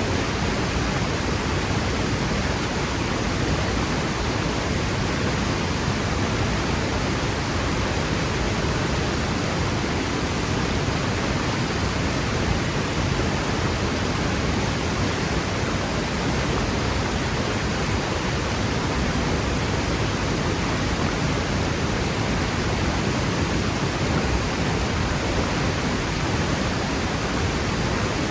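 Waterfall crashing down a cliff: a steady, unbroken roar of falling water.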